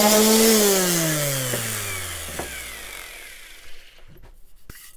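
Electric random orbital sander running on a wooden block, then switched off about half a second in, its hum falling steadily in pitch and fading as the motor winds down over a couple of seconds. A few light knocks near the end.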